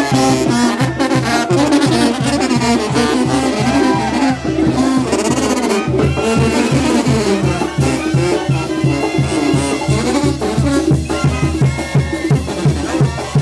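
Brass band playing a lively tune over a steady, quick beat.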